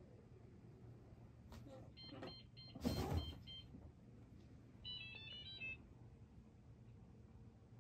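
Electronic beeping from an iRobot Braava robot mop: a two-note beep repeated several times, then a short chime of stepped notes. A brief thud is heard over the first beeps.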